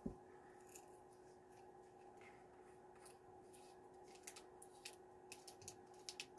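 Faint clicks and crackles of a small hot sauce bottle being opened, its cap and seal worked loose by hand. There is a soft thump at the start, the clicks come more often in the second half, and a sharp click comes at the very end.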